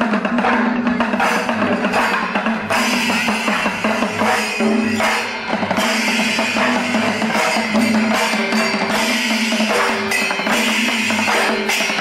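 Music with dense, steady drumming and a held tone underneath.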